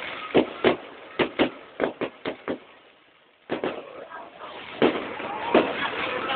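Fireworks going off as a quick, irregular string of sharp bangs, about eight in the first two and a half seconds and fading. After a brief lull, more scattered bangs come at a slower pace.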